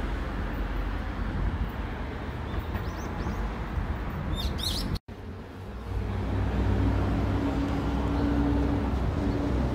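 City street ambience: a steady wash of traffic noise with small birds chirping in two short bursts. After a cut about five seconds in, a vehicle engine runs with a steady hum and a held tone.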